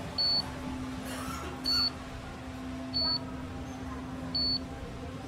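Electronic beeper sounding short, high beeps, four times, about every second and a half, over a steady low hum.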